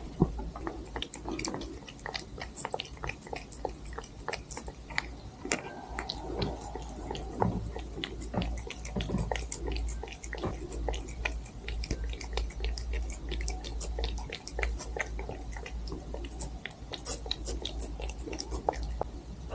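A cat chewing, with many quick, irregular crunchy clicks of biting close to the microphone.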